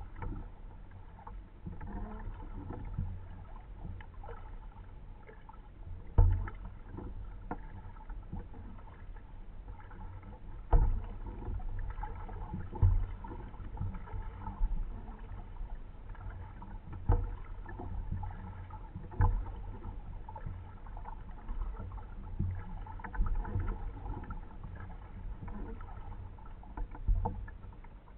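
Kayak paddling: water swishing and lapping against the plastic hull, with a low rumble. A sharp knock or splash every few seconds stands out as the loudest sound.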